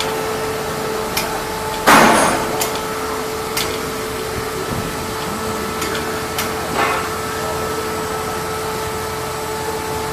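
Metal clanks and knocks from mechanics' tools and fittings on a hoisted tank engine pack, with one loud clatter about two seconds in and a few lighter knocks after it, over a steady hum.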